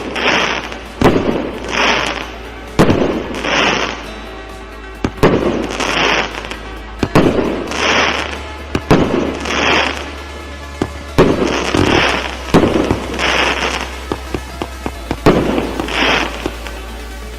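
Multi-shot consumer fireworks cake of 1 to 1.2 inch calibre firing its shots. Sharp launch bangs are each followed by a noisy burst about once a second, with short lulls between groups of shots.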